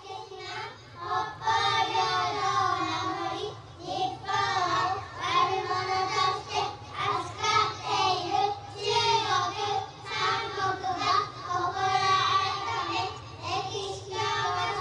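A group of young kindergarten children chanting patriotic political slogans in Japanese in unison, a sing-song recitation in short phrases with brief pauses between them. They are reciting a memorized pledge.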